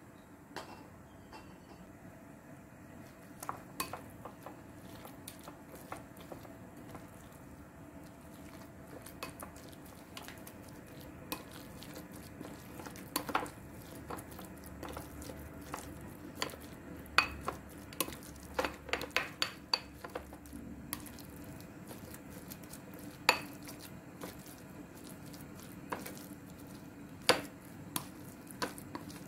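Plastic spoon stirring and mashing ground pork in a ceramic bowl to mix in its seasonings, with sharp clacks of spoon against bowl, including a quick run of them a little past the middle.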